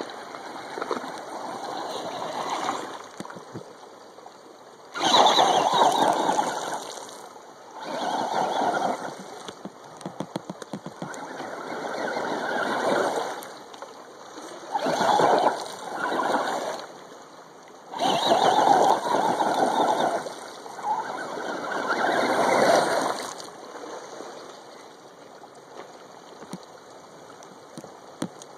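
Radio-controlled monster truck churning and splashing through a shallow creek, in about seven loud surges of a second or two each as it drives back and forth, over the steady rush of the stream. The splashing stops a few seconds before the end, leaving only the stream.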